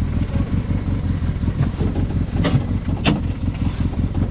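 Arctic Cat Wildcat side-by-side engine running with a steady low rumble while driving, with two sharp knocks about half a second apart past the middle.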